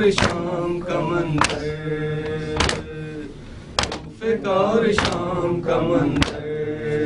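Noha, a Shia lament, chanted by a man at a microphone, with men beating their chests in time (matam): a sharp slap about every 1.2 seconds under the chant.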